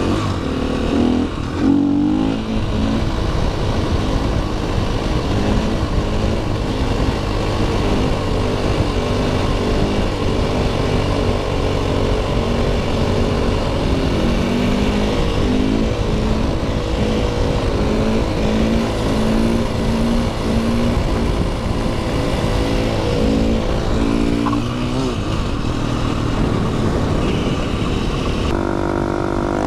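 Single-cylinder dirt bike engine running hard as it is ridden, revving up and down with the throttle. The revs climb near the end.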